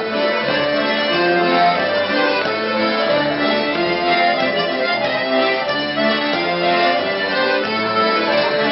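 A group of diatonic button accordions playing a Breton traditional dance tune together, a steady rhythmic melody over low bass notes.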